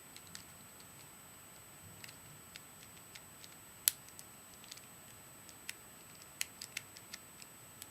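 Small plastic clicks of a Rubik's Cube's layers being twisted by hand, coming irregularly, with one sharper snap about four seconds in.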